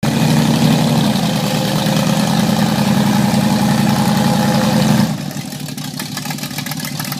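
Vehicle engine running loud and steady, then dropping suddenly to a quieter, rougher rumble about five seconds in.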